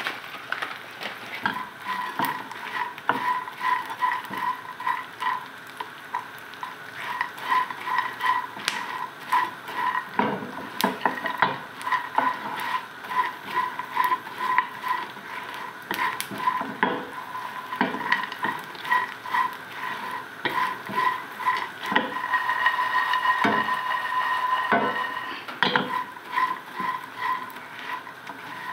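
Silicone spatula stirring and scraping food in a nonstick frying pan, in a steady rhythm of strokes, over the sizzle of frying.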